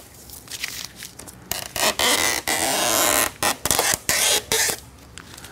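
Scraping and rubbing handling noises: several short scrapes and clicks, and one longer zip-like scrape lasting about a second and a half.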